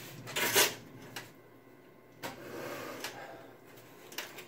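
Handling noise from a thick PC power-supply cable, the 24-pin motherboard lead, being pulled through a case's cable-routing hole: a short rubbing rush about half a second in, then quieter rustling with a few light knocks and clicks against the case.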